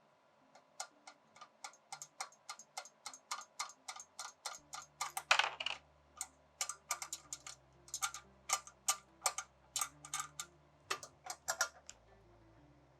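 A 7/16 inch ratchet wrench clicking in quick runs, about four to five clicks a second, as it backs the keeper nuts off the mounts. There is a louder clatter about five seconds in, and after it the clicks come in shorter bursts with pauses.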